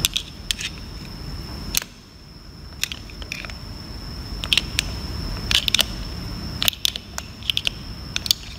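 Screwdriver blade clicking and scraping against the steel end plate and housing of an inline PE diesel injection pump as it pries the plate off, a series of sharp, irregular metal clicks.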